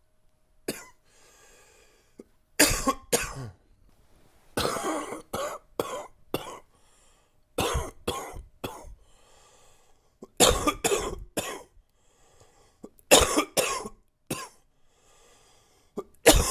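A man coughing from a chest cold: chesty, congested coughs in short fits of two or three, every two to three seconds, with faint breaths drawn in between.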